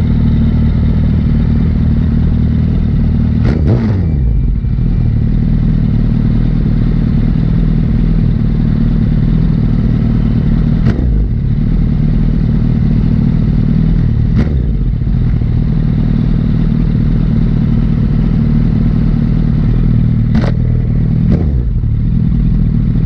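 Liter-class sportbike engine running steadily at cruise. A few sharp clicks come through: one about three and a half seconds in, then others around eleven, fourteen and twenty-one seconds.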